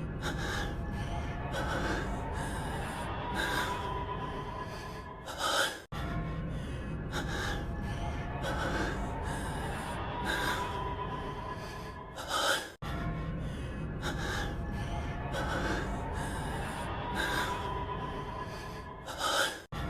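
A man's heavy breathing and gasping from a voiced anime clip, looped about every seven seconds: quick breaths about once a second over a steady low background, each loop ending in a louder gasp and a brief cut to silence.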